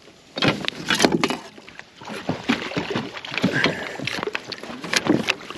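Water splashing and sloshing with irregular knocks and clatters, as a hooked bass thrashes at the surface and is fought to the boat.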